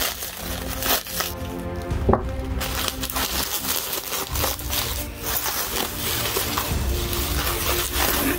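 Plastic bubble wrap crinkling and rustling as it is handled and pulled open, over background music with long held notes. A sharper crackle comes about two seconds in.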